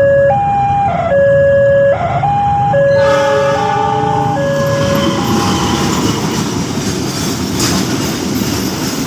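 Level-crossing warning siren of the stepping kind, switching back and forth between a low and a higher tone. About three seconds in, a chord of several tones sounds for about a second and a half, and from about five seconds the noise of a Pertamina fuel tank train passing takes over and drowns the siren.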